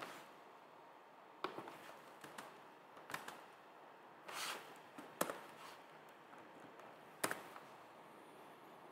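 Scattered computer keyboard keystrokes over faint room tone: single clicks and a short cluster of taps, with a brief soft hiss about four and a half seconds in.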